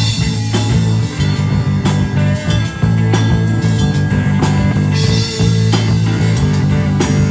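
Rock band playing an instrumental passage, with drum kit and guitar over a steady bass line.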